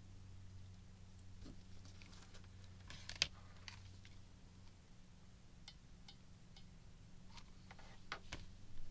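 Faint scattered clicks and rustles of fabric flower petals being handled and glued with a hot glue gun, with a sharp click about three seconds in and a few more clicks near the end, over a steady low hum.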